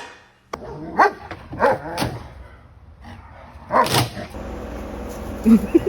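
A dog barking: four short barks, three close together in the first two seconds and one more about four seconds in.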